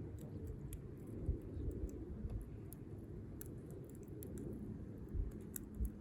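Wood fire crackling in a compact Firebox stove: scattered sharp pops and ticks over a low steady rumble.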